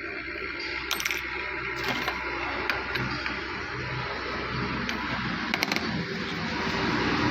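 Small metal pump parts clinking and tapping against each other by hand during reassembly of a diesel injection pump: a few sharp clinks about one and two seconds in and a quick cluster near six seconds, over a steady low background hum.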